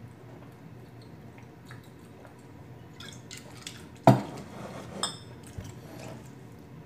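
Glass bottle handled and set down on a tabletop: a few light clicks, then one sharp knock about four seconds in, followed by a couple of smaller knocks.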